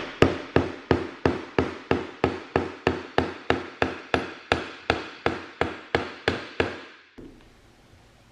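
Hammer striking the top of a wooden 4x4 block, a steady run of about three even blows a second, driving a new oil seal into a tractor's rear axle gear case. The blows stop about a second before the end.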